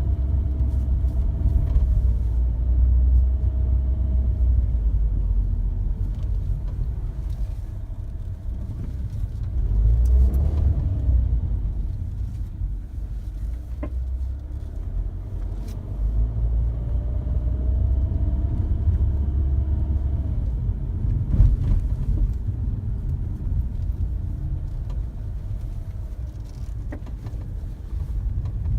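Mini Cooper R56 running on the move: a low rumble that swells and fades, with a whining tone that slowly rises and falls in pitch, the noise its owner finds annoying. A few sharp clicks come through now and then.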